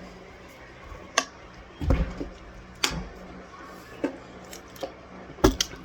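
Raw cornstarch being eaten from a spoon: six or so irregular sharp crunches and clicks over a low background, the loudest near the end.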